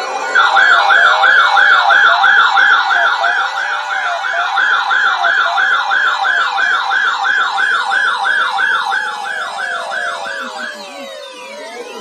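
NOAA weather radio alert sirens going off for a weather radio EAS test: a loud warbling tone swinging up and down about three times a second. It stops near the end, leaving fainter sliding tones from other radios.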